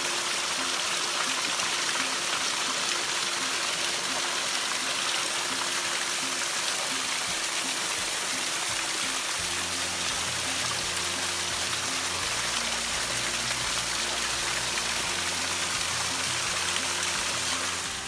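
Water of a small cascading waterfall pouring and splashing over rock ledges: a steady rush. Soft background music plays underneath, and a low bass comes in about halfway through.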